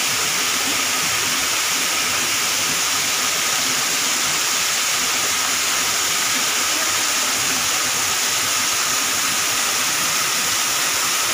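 Waterfall pouring down a rock face and splashing into the pool below: a loud, steady hiss of falling water.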